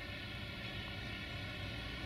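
Railway diesel engine running steadily, a low rumble with a constant droning tone over it.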